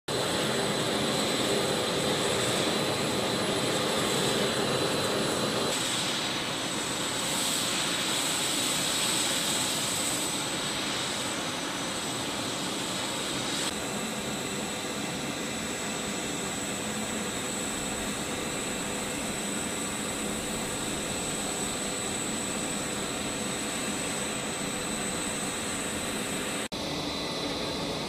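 Lockheed C-130J Super Hercules turboprop engines running on the ground: a steady drone with a high steady whine, changing slightly in tone about six and fourteen seconds in, with a brief dropout near the end.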